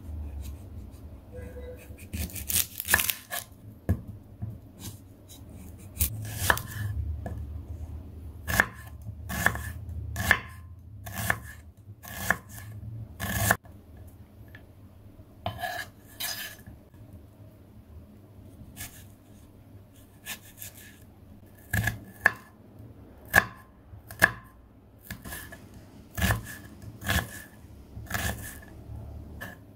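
Kitchen knife slicing and dicing a red onion on a wooden cutting board: the blade knocks against the board in sharp, irregularly spaced cuts.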